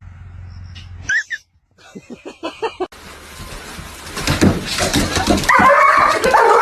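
Dog whining and whimpering: a high rising whine about a second in, then a quick run of short whimpers. After that comes a louder stretch of longer, wavering whines over a noisy background in the second half.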